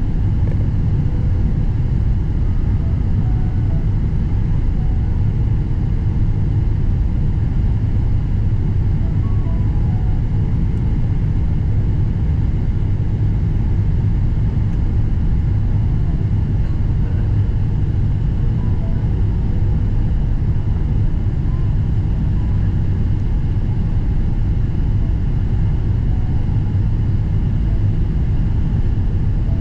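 Steady low rumble of cabin noise inside a Boeing 777-300ER airliner in motion.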